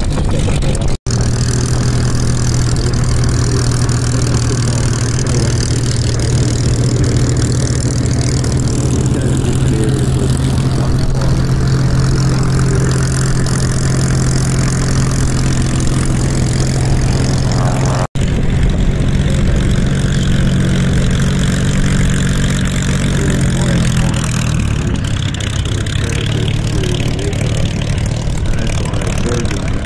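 Large piston aero engine of a WW2 warbird running steadily at low power. Its note falls away about three quarters of the way through.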